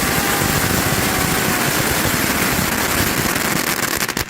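A 500-gram ground fountain firework spraying loudly with a dense crackling hiss, a faint falling whistle running through it in the first half. The fountain cuts off abruptly as it burns out.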